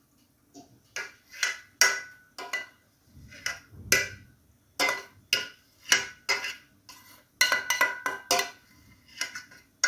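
Spoon clinking and tapping against small glasses and the pot, a long run of quick irregular knocks, some with a brief ring, as thickened lemon cream is spooned into the glasses.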